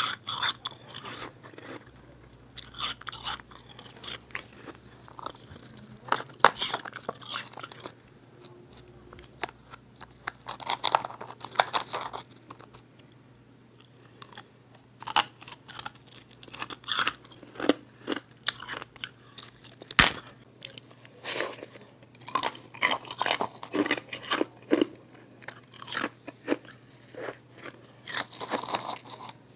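Biting and chewing of soft chunks of pressed blended ice: irregular clusters of crunches, with short pauses between bites.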